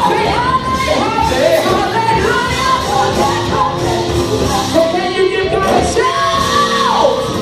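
Live church worship music: singing over a full band.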